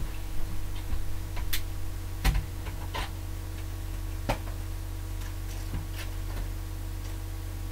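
Irregular light clicks and knocks of hard plastic toy figures being handled and set down on a shelf, about eight over several seconds, the sharpest about two seconds in and just past four seconds, over a steady low hum.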